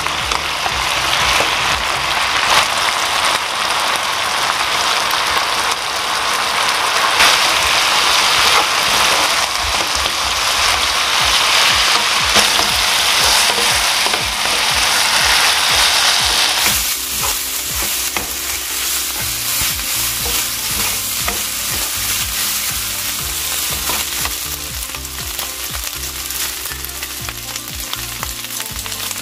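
Soy-marinated pork bulgogi sizzling and frying hard in a nonstick pan over high heat while it is stirred with a wooden spatula; the marinade's liquid is cooking down so the meat can crisp. The sizzle is loud and dense at first, then turns quieter and thinner a little past halfway.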